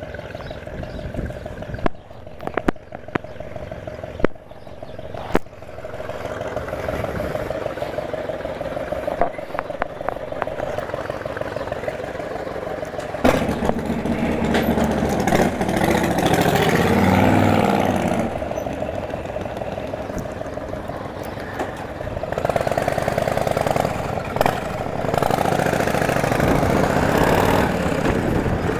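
Motorcycle engine running under way, with wind rushing over the helmet microphone. A few sharp knocks come in the first six seconds, and the wind and engine noise grow louder from about halfway through.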